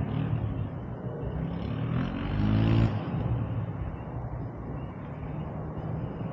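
Four-wheeler engine running at idle, revved up once about two seconds in, then dropping back to idle about a second later.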